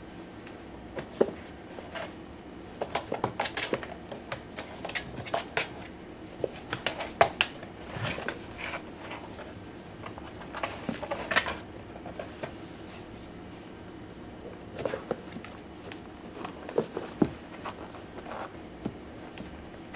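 Cats shifting and scrabbling in a cardboard box: irregular scratching, rustling and light knocks of claws and bodies against the cardboard, coming in clusters.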